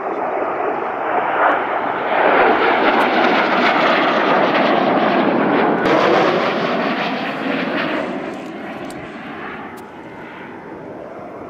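Jet aircraft flying past overhead: a loud engine roar that builds over the first couple of seconds, holds, then fades away from about eight seconds in, its pitch sliding down as the jets pass.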